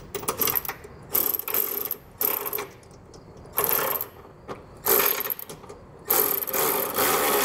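Milwaukee cordless ratchet spinning a 13 mm socket to tighten a bracket bolt. It runs in a series of short bursts, about six, and the last burst is the longest.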